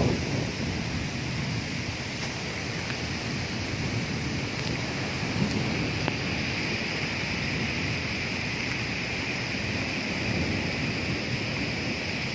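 Heavy downpour: a steady rush of rain, with wind rumbling on the phone's microphone.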